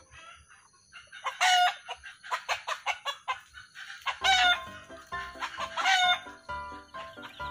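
Free-range chickens clucking, with three loud, short calls about one and a half, four and six seconds in.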